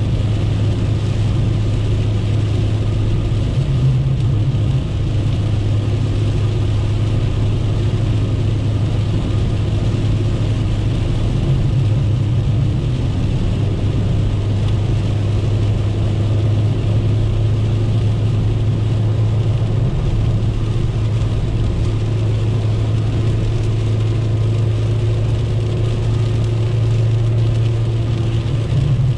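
Inside the cabin of a 1997 Chevrolet Corsa Wind cruising on a highway in heavy rain: the engine holds a steady low drone under an even hiss of rain and wet tyres.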